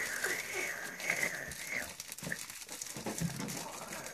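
A black plastic bag crinkling and rustling in quick crackles as hands dig through bang snaps packed in sawdust. A thin, wavering high-pitched sound runs over it for the first two seconds or so.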